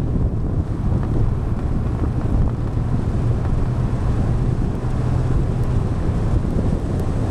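Wind buffeting the microphone on a scooter riding at steady cruising speed, with the scooter's engine running steadily underneath as a low hum.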